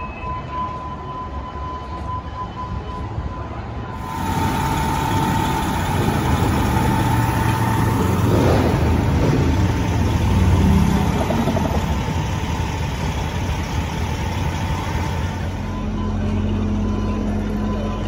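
Fire engines' diesel engines running on the street, a low steady rumble with a thin, steady high tone above it. The sound changes abruptly about four seconds in and again near the end, and the last part is a steadier engine hum.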